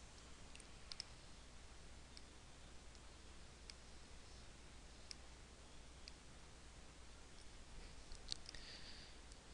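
Faint, scattered clicks of a computer mouse, about a dozen at irregular intervals, over near-silent room tone with a low hum.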